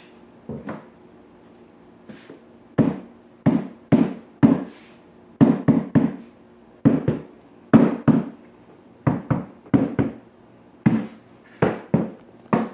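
A hammer knocking on luxury vinyl plank flooring, tapping the planks into place at the edge of the laid rows. There are about twenty blows, uneven singles and pairs, faint at first and then firm. Each is a sharp knock with a short low ring.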